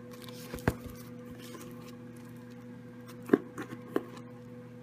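A plastic-wrapped parcel handled on a granite countertop: a few sharp taps and knocks, the loudest about three and a half seconds in, over a steady hum.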